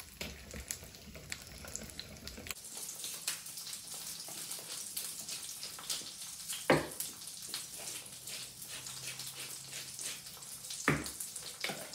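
Almond-crusted chicken thighs frying in oil in an electric skillet: a steady crackling sizzle with many small pops, and a couple of sharper knocks about two-thirds of the way in and near the end.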